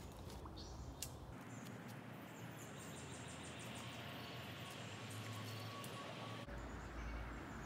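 Faint outdoor ambience: a steady hiss with a few faint high-pitched chirps and a light click about a second in.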